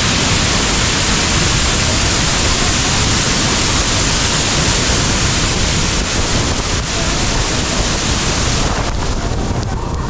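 Waterfall running steadily: a loud, even rush of falling water with no break.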